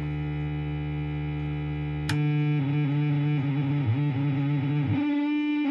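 Korg MS-20 analog synthesizer oscillator sounding a steady buzzy drone. About two seconds in a click comes as the pitch jumps, and after that the tone wavers unsteadily while controls are worked during a function test of the old synth.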